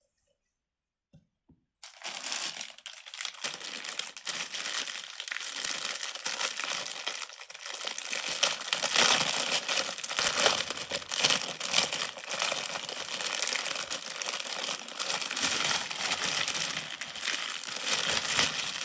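Plastic crinkling and crackling, handled continuously for about sixteen seconds after a short silence.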